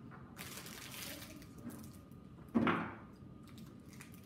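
Light handling sounds of gingerbread-house decorating on a wooden table: a soft rustle for about a second and a half, then a short thump about two and a half seconds in, the loudest sound.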